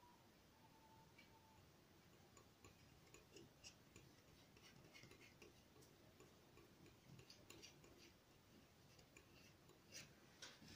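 Near silence, with faint, irregular small ticks and scrapes of a palette knife mixing oil paint on paper.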